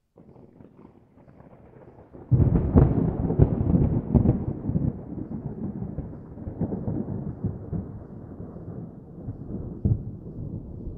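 Thunder: a faint low rumble, then about two seconds in a loud crack of thunder that rolls on and slowly fades.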